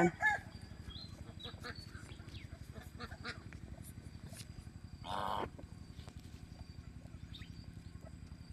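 A duck gives one short, honking call about five seconds in, over a low, steady background rumble with faint scattered clicks.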